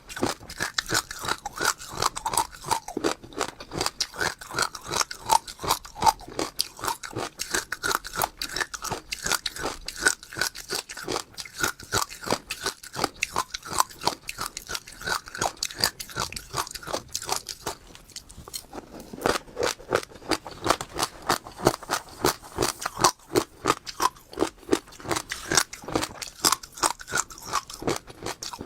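Close-miked crunching of passion fruit seeds being chewed: rapid crisp cracks, several a second, with a brief lull about two-thirds of the way through.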